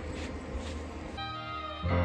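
A steady noisy rumble cuts off just over halfway through. Soft background music with sustained notes takes over and swells louder near the end.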